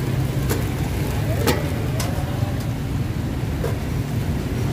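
Busy street ambience: a steady low rumble, likely passing motorbike traffic, with a few sharp clicks and clinks scattered through it.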